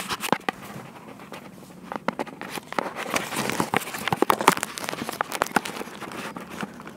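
Handling noise of a phone being moved and gripped: a dense run of irregular clicks and crackles, busiest in the middle.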